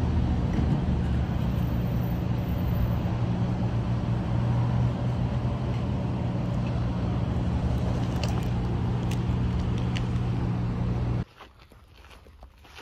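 Street traffic: a vehicle's steady low engine hum over general traffic noise. It cuts off suddenly near the end, leaving a much quieter background with a few faint taps.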